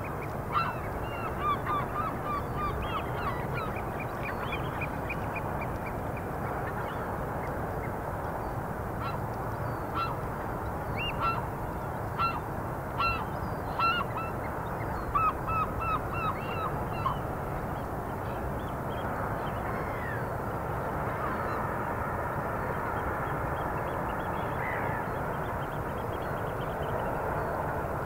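Geese honking in many short, repeated calls, which die away after about 17 seconds, over a steady background hiss.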